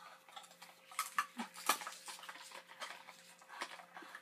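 Scattered small clicks and rustles of people eating and drinking fast food: paper wrappers being handled and a plastic straw worked in a soda cup lid, with a cluster of sharper clicks about a second in.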